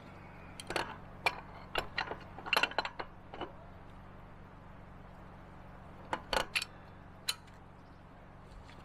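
Sharp metal clinks and clicks of a pipe wrench working on a pitless adapter fitting on a steel well casing as it is tightened: a quick run of about ten in the first few seconds, then a few more after a pause.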